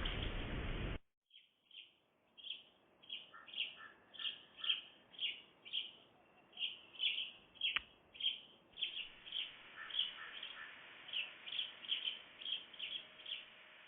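A steady hiss that cuts off about a second in, then small birds chirping: short, high chirps repeated about twice a second.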